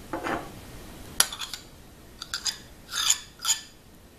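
A metal spoon clinking and scraping against a plate and a mayonnaise tub as mayonnaise is spooned onto grated cheese and egg: one sharp clink about a second in, a few lighter clicks, then two short scrapes near the end.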